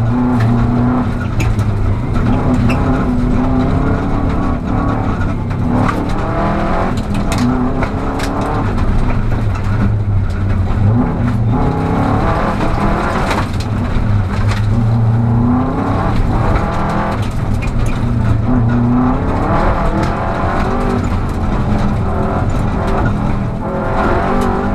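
Rally car engine heard from inside the cabin, revs climbing and dropping again and again through gear changes at full stage pace on gravel, with scattered sharp knocks and clatter over the steady road noise.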